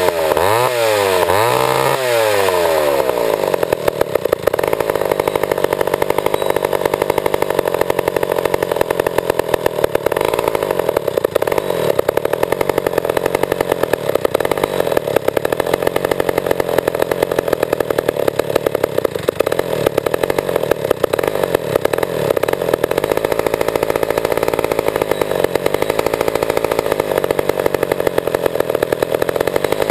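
Old Pioneer two-stroke chainsaw revved up and down a few times, then held running at a steady speed.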